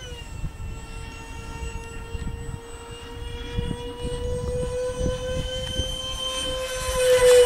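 Electric ducted fan of a radio-controlled A-10 model jet whining at a steady pitch in flight. The pitch drops a little at the start, and the whine swells loudest near the end as the jet passes close, its pitch beginning to fall. Gusty wind buffets the microphone underneath.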